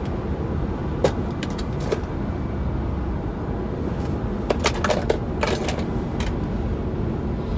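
Car on the move, heard from inside the cabin: a steady low road and engine rumble, with sharp clicks and knocks about a second in, near two seconds, and a cluster between about four and a half and six seconds in.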